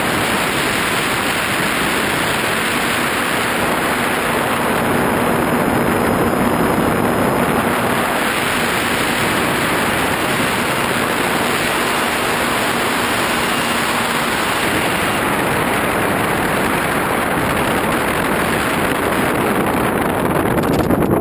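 Loud, steady rush of airflow over a radio-controlled model plane's onboard camera in flight, mixed with the plane's motor and propeller noise. A faint steady hum runs from a few seconds in until about two-thirds of the way through.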